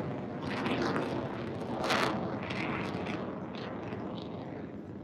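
Fighter jet's engine noise overhead: a broad rushing rumble with crackling, swelling louder about two seconds in.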